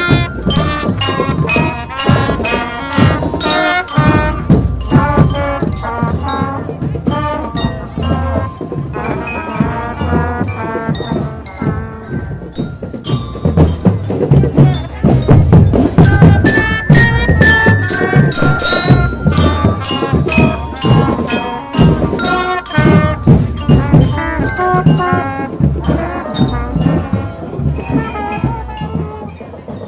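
Marching drum band playing: a melody of ringing mallet-struck bell notes, typical of the bell lyres in such a band, over steady marching drums.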